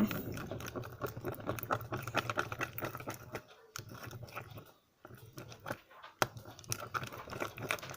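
Glue-and-borax slime being stirred with a stick in a cup: a rapid run of small clicks, thinning out in the middle, with one sharper click about six seconds in.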